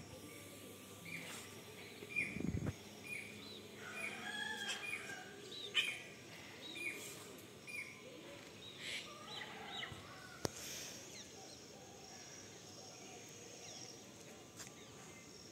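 Birds calling: a long run of short, repeated chirps that thin out after about ten seconds, with a brief low thump about two and a half seconds in and a sharp click near the ten-second mark.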